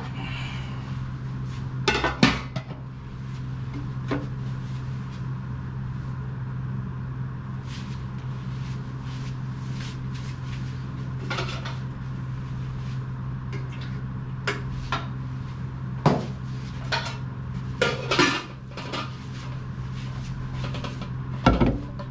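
Dishes being handled at a stainless-steel sink: a ceramic bowl and a metal pot knock and clatter in scattered clinks, with a louder set-down near the end. A steady low hum runs underneath.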